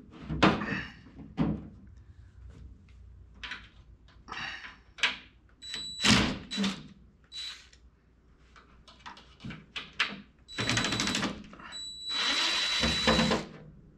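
Cordless drill/driver running in short spurts, with two longer runs of about a second each near the end, backing the screws out of a wooden-framed display case's back panel. Knocks and clatter of the case being handled come in between.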